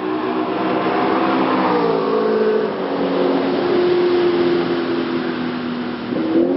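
BMW M3 with an ARK DTS aftermarket exhaust running hard at speed, a loud steady engine note that drops in pitch in steps about two seconds in, holds, and climbs again near the end.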